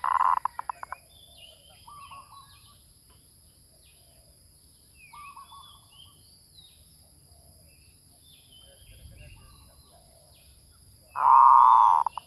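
Zebra doves calling: a loud burst of rapid staccato cooing at the start and a loud, smoother coo about a second long near the end, with softer short coos in between. Small birds chirp faintly in the background over a faint steady high tone.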